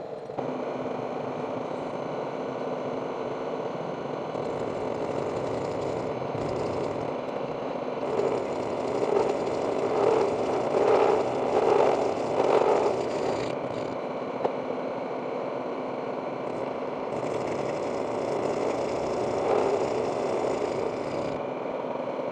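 Milling machine running steadily, with a constant hum, growing louder three times in quick succession around the middle.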